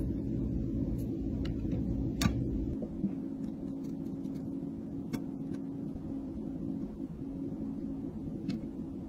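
Steady low hum with a few faint, sharp clicks and taps of a plastic makeup compact and metal tweezers as sponges are set into the compact's pans. The clearest click comes about two seconds in.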